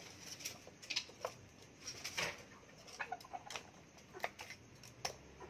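Scattered short, sharp bird chirps and clicks, about ten at irregular intervals, over a faint background hiss.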